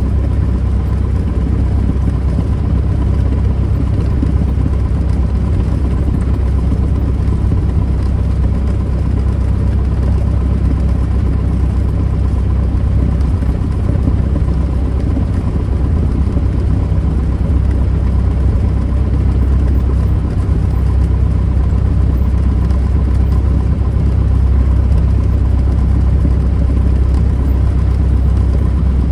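Light single-engine plane's piston engine and propeller running steadily at low taxi power, a constant low drone heard from inside the cockpit.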